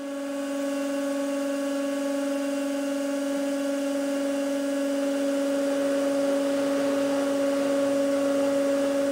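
A 150-ton hydraulic press running with a steady, even hum as its ram comes down and begins loading a bicycle crank. The hum grows slightly louder over the seconds.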